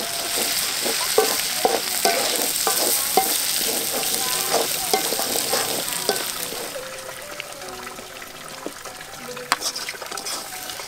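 Chopped chili-and-shallot spice paste with lemongrass, ginger and lime leaves frying with a sizzle in a black wok over a wood fire, a metal spatula stirring it and scraping the pan. The sizzle dies down about seven seconds in, leaving scattered scrapes and taps of the spatula.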